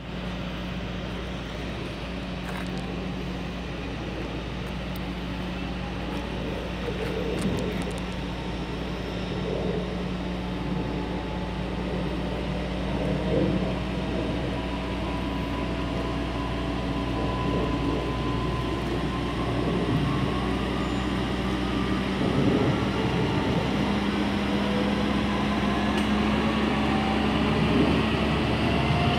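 Diesel engine of a Doosan DX140W wheeled excavator running steadily as the machine, riding on its rail guide wheels, travels along railway track, getting gradually louder. From about two-thirds of the way through, a thin whine rises steadily in pitch.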